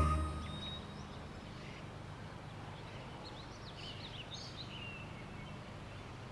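Quiet ambience: a steady low background hum, with a cluster of faint bird chirps about three to five seconds in.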